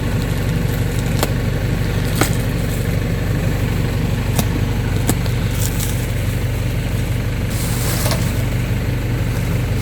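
Diesel engine of a tractor-mounted backhoe running steadily at idle, with a few sharp clicks and a brief scraping noise near the end.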